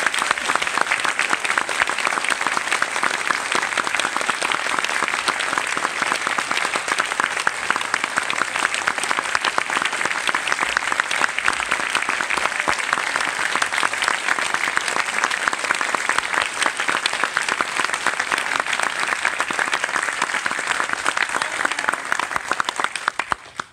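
Audience applauding: dense, steady clapping from many hands that dies away sharply near the end.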